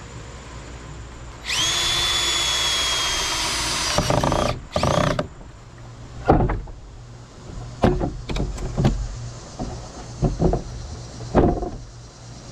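A cordless drill runs steadily for about two and a half seconds, then in two short bursts. After that come several sharp wooden knocks as weathered driftwood boards are set down and shifted into place.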